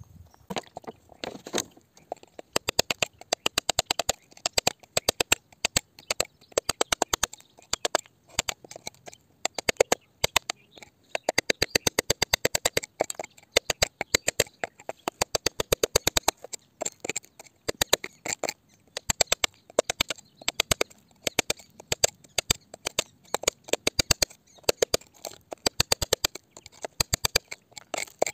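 Hand tools picking and scraping at gritty rock and soil around an embedded stone. Quick runs of sharp clicks and scrapes, several a second, with loose grit rattling.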